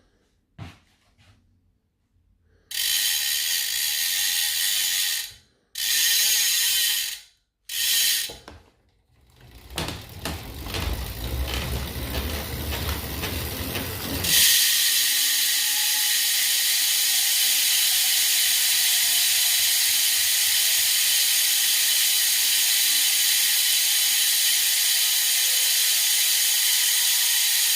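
Rear freehub of a Vel 50 RL carbon wheel buzzing as the wheel coasts: three short bursts, then a rougher stretch over a low rumble, then a steady loud buzz from about 14 seconds in.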